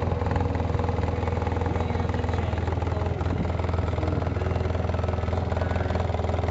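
Polaris RZR side-by-side engine idling steadily with a low hum.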